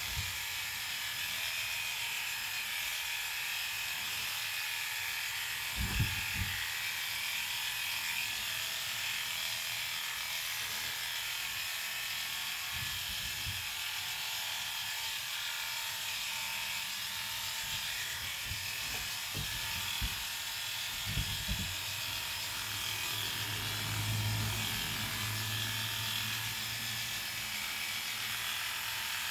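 Cordless electric dog-grooming clippers running steadily as they cut through an Airedale terrier's coat, with a few low thumps now and then.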